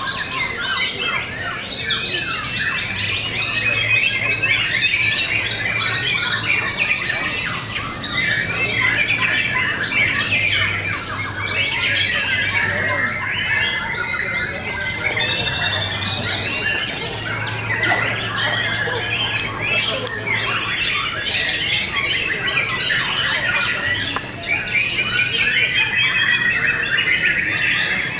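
Caged white-rumped shamas singing together in a dense, unbroken stream of rapid, varied song phrases.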